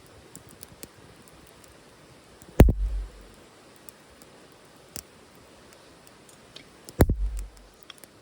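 Wood fire burning in a titanium wood stove, crackling with faint scattered ticks, broken twice by a loud sharp knock followed by a short low rumble, the two knocks about four and a half seconds apart.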